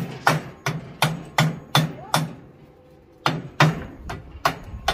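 Hammer blows on a bolt, driving it through a chain. Seven evenly spaced strikes come at about three a second, then after a pause of about a second four or five more.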